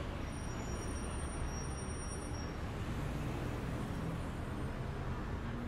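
Outdoor street ambience: a steady low rumble of road traffic, with a few faint high tones early on.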